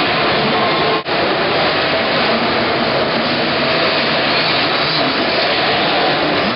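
50cc two-stroke mini motocross bike engines running steadily in an indoor arena, a dense whining engine noise with a brief break about a second in.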